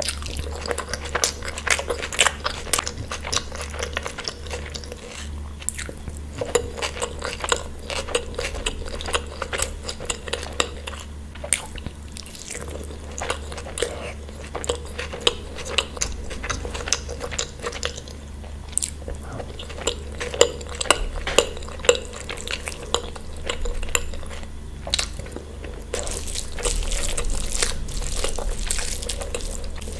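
Close-miked eating: chewing and crunching of food, with many short clicks of tableware throughout, over a low steady hum.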